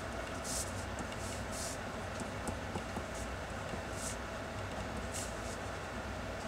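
Mechanical pencil lead scratching on paper in short, quick strokes, about half a dozen of them, over a steady low background hum.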